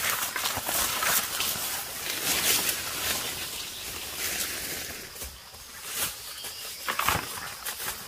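Footsteps on dry leaf litter and bamboo debris, with undergrowth rustling as leafy plants brush past, thinning out in the middle; a single heavier thump about seven seconds in.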